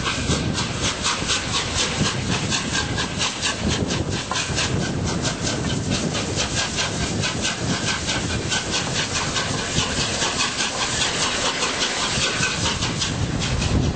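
Steam locomotive Bittern, an LNER A4 Pacific, running with a steady hiss of steam and a rapid, regular beat.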